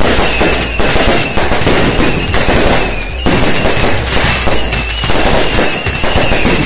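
Loud, unbroken barrage of firecrackers and fireworks going off, the bangs packed too close to count, with a thin high whistle that comes and goes.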